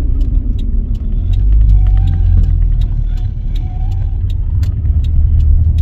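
Road and drivetrain noise inside the cabin of a moving Toyota Tercel wagon that has no sound deadener yet: a loud, steady low rumble with scattered light clicks.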